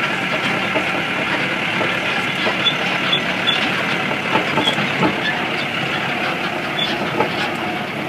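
Farm tractor running steadily while driving across rough pasture, its engine noise mixed with scattered rattles and knocks from the machine.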